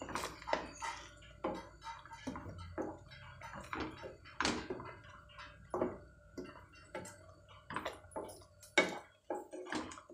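Spatula stirring a thick, sticky mango barfi mixture in a non-stick kadhai: irregular scrapes and soft taps against the pan, one or two a second.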